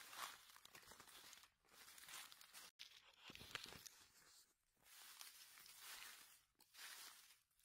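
Faint footsteps crunching and rustling through dry fallen leaves on a forest floor, about one step a second.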